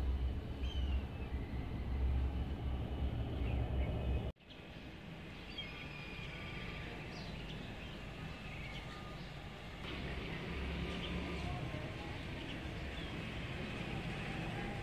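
Outdoor background ambience: a steady low rumble that cuts off abruptly about four seconds in, followed by a steady hiss with scattered faint bird chirps.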